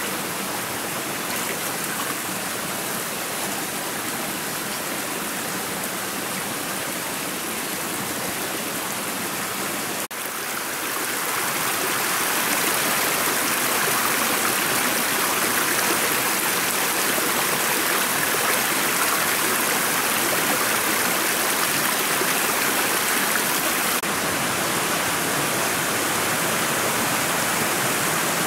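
Steady rushing of a shallow rocky forest stream, with a brief dropout and click about ten seconds in, after which the rush is louder.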